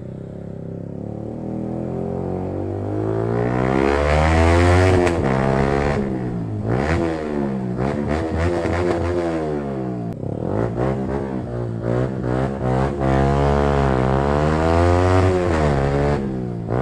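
Yamaha R15M's single-cylinder engine through an aftermarket full exhaust, revving up and easing off several times as the bike rides, with sharp crackles at times.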